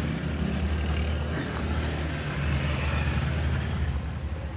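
Steady low rumble of a vehicle engine running nearby.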